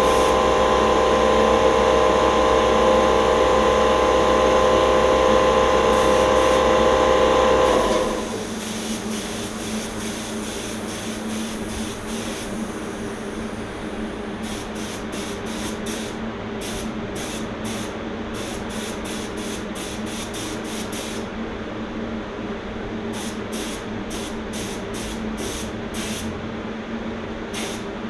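Compressed-air spray gun spraying paint onto a transmission case in short bursts of hiss, the bursts coming thick and fast later on, over a steady machine hum. At the start a louder motor with a steady whine is running, and it stops about eight seconds in.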